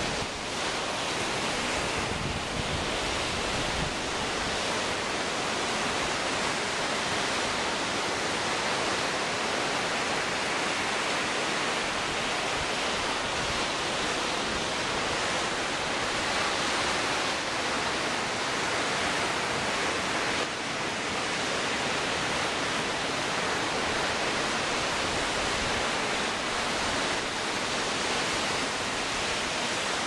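Storm-driven lake waves breaking and rolling onto the shore in a gale, a steady dense rush of surf with strong wind gusting across the microphone.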